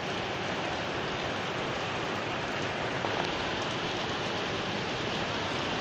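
Steady heavy rain falling and pattering on surfaces, an even hiss with faint drop ticks.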